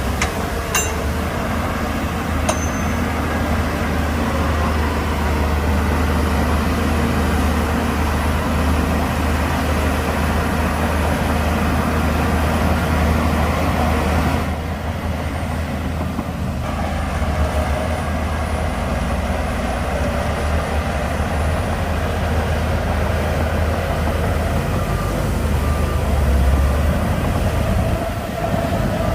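Shantui DH17C2 crawler bulldozer working, its diesel engine running with a steady deep drone under broad mechanical noise. There are a couple of sharp clicks in the first few seconds, and the higher noise briefly drops away about halfway through.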